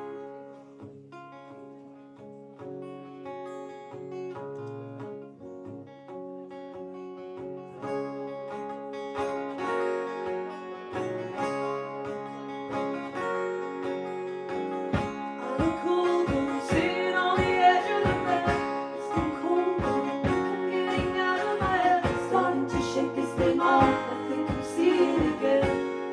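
Live acoustic band music: sustained guitar chords that build in loudness, a steady low beat of about two thumps a second coming in just past halfway, and singing joining over it.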